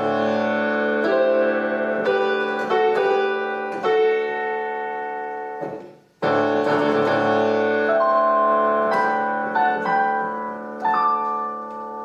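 Solo piano playing slow, ringing chords with melody notes struck over them. The sound dies away about halfway through and a new chord starts a moment later.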